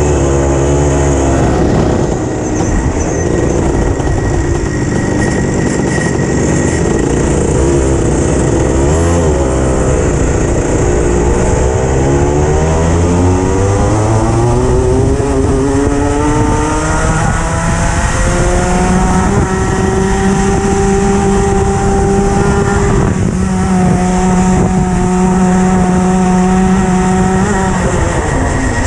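Racing go-kart engine heard from onboard, under race load. The revs waver through the first corners, then climb steadily down a straight, hold high with a brief dip partway, and fall away near the end as the kart slows for a corner.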